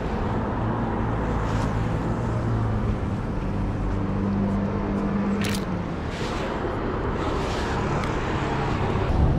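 City road traffic: vehicle engines running with a steady low hum and road noise. There is a short sharp click about five and a half seconds in.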